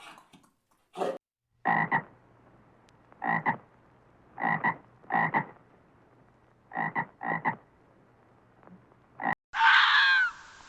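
A frog croaking in short calls, about eight of them at irregular intervals, some in quick pairs. Near the end a louder, different animal call with sliding pitch cuts in.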